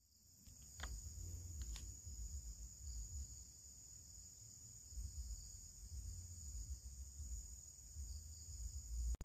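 Insects droning in a steady, high, unbroken band, with a low rumble underneath and a couple of faint clicks near the start.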